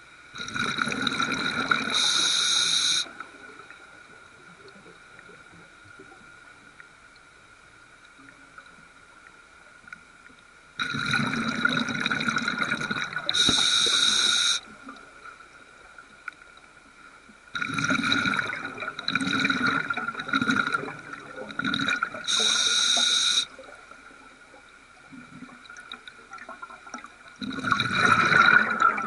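Scuba diver's regulator exhaling bubbles underwater, in four bursts about three to six seconds long, roughly every eight seconds, with quiet inhalations between.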